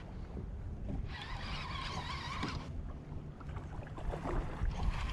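Wind rumbling on the microphone in an open boat. About a second in, a whirring sound starts and runs for about a second and a half before stopping.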